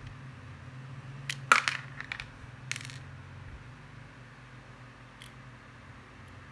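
Several sharp small clicks and a light clatter, the loudest about one and a half seconds in, then one faint click a few seconds later: a coin-cell battery and the battery-hatch cover of a digital caliper being handled and taken out over a plastic case.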